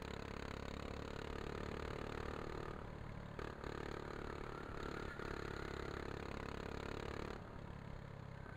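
Go-kart engine running on track, heard from an onboard camera, with a steady engine note that dips briefly about three seconds in and falls away near the end as the throttle eases.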